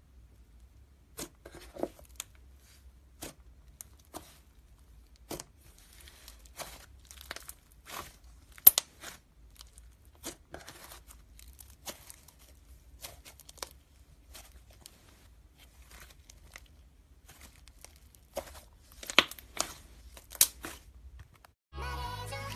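Slime being squeezed and poked by hand, making irregular sharp pops and crackles, a few each second at most. Music comes in near the end.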